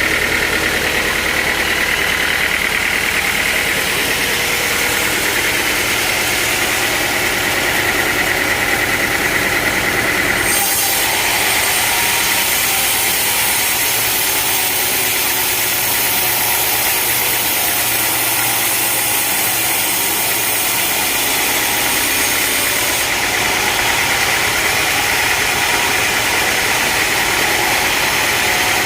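Sawmill machinery running loudly and steadily, an engine-driven saw. About ten seconds in a bright hissing noise joins the hum and lasts until about 23 seconds in.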